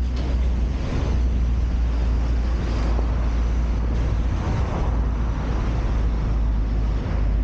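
A car driving slowly along a town street, heard through a camera mounted on its roof: a steady low rumble of wind on the microphone mixed with tyre and road noise.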